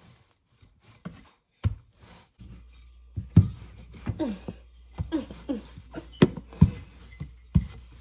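Irregular thumps and knocks of kitchen work on a counter while bread dough is being handled, with a few short falling tones around the middle and a low steady hum that comes in about two and a half seconds in.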